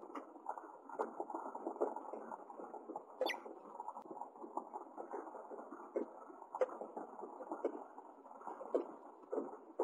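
House finch nest at close range: a steady rustling and scratching as the female and her nestlings shift in the nest, with many irregular ticks and a few short squeaky chirps while she feeds them.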